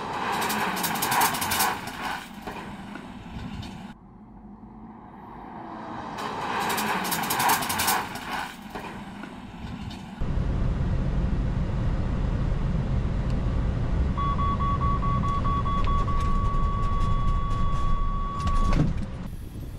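Mercedes-Benz truck test run: two swelling waves of rolling noise as the truck passes, then a steady low rumble inside the cab. Over the rumble the emergency-braking collision warning sounds, fast beeps running into one continuous tone that stops shortly before the end.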